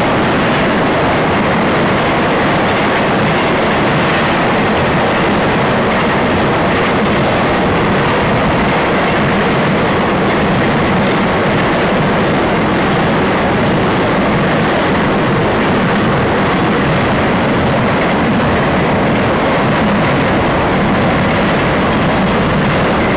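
Intermodal freight train cars rolling past on the rails: a loud, steady rush and rumble of wheels on track.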